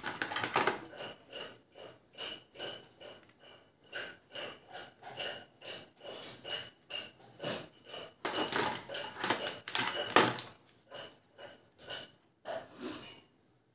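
Irregular clicks, knocks and rattles of hard plastic parts being handled and taken out of a plastic carry case: a 12 V cordless drill kit's case, battery, charger base and adapter cable. The handling is busiest and loudest a little past the middle.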